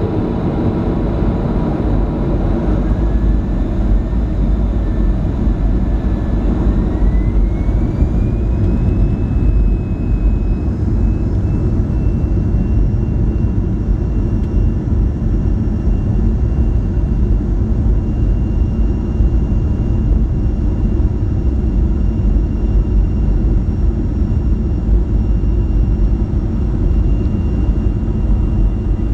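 Boeing 737-500's CFM56-3 jet engines heard from inside the cabin: a loud, steady rumble with a thin whine that rises in pitch about seven to nine seconds in and then holds steady, as the engines spool up to higher thrust.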